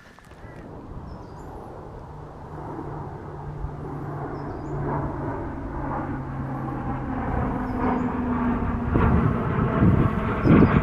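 An engine's steady low drone, growing steadily louder as it comes closer, its pitch stepping up about three-quarters of the way through. Faint bird chirps sound above it.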